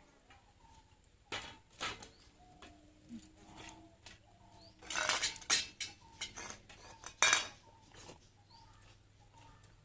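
Clinks and scrapes of a plate and utensils while a meal of rice and egg curry is eaten, loudest in a cluster about five seconds in and one sharp clatter just after seven seconds. Birds chirp faintly in the background.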